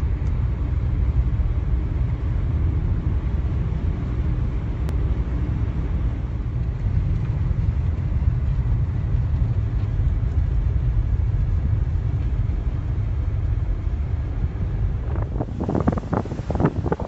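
Blizzard wind buffeting the microphone as a steady low rumble, with stronger irregular gusts near the end.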